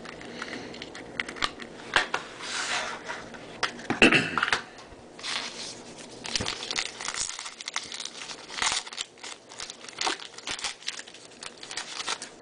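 Trading card pack wrappers being torn open and crinkled by hand, with irregular rustling and crackling and a louder rip about four seconds in.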